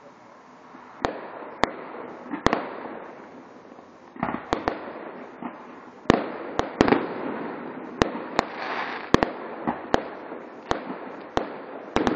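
Fireworks display: aerial shells bursting with sharp bangs, about fifteen of them, coming faster from about six seconds in, over a continuous crackling rumble from the bursts.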